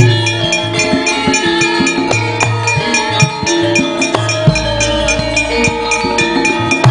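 Javanese gamelan music with a female sinden singing: held and bending sung notes over metallophones, gongs and drum. Regular sharp clicks keep the beat throughout.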